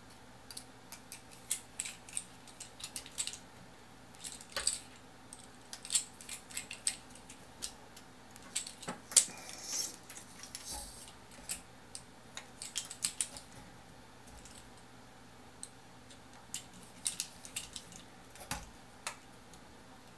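Scattered small clicks, taps and light rattles of a hex driver turning screws and of the camera gimbal's metal and carbon-fibre parts being handled, irregular, with a short lull a little past the middle.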